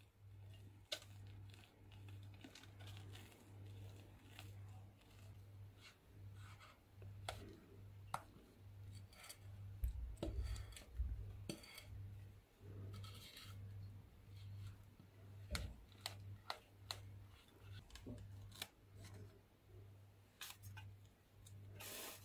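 Silicone spatula scraping thick almond-flour cake batter out of a glass bowl into two parchment-lined cake pans: faint soft scrapes and light taps, with a few dull knocks. A low hum pulses evenly underneath.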